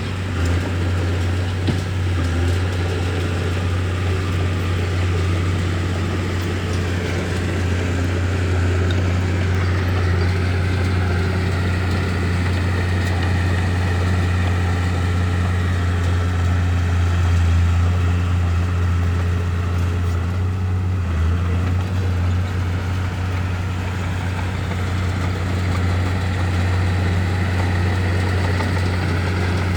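Heavy diesel engine of a bulldozer running steadily, with a deep constant drone and some rise and fall in engine note as it works.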